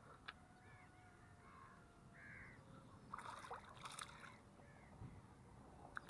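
Faint crow caws, several spread across a near-silent background, with a small click near the start and a few soft rustles about three to four seconds in.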